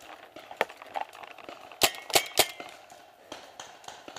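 Paintball fire, with balls striking close by: a few scattered sharp cracks, then three loud ones in quick succession about two seconds in.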